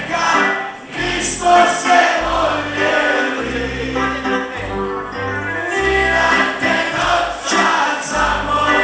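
Live band playing a slow song with several voices singing together in chorus over a steady bass line.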